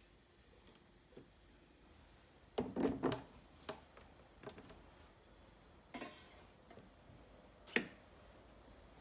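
Kitchenware being handled: a short clatter of knocks a few seconds in, a few lighter knocks, a brief scrape about six seconds in, and a sharp clink near the end.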